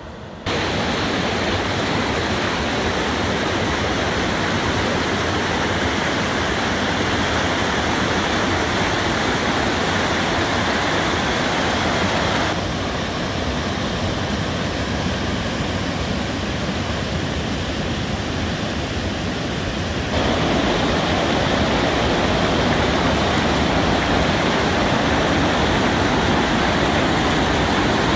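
Water rushing steadily over a river weir. About halfway through the sound turns duller, and about two-thirds of the way through it comes back louder.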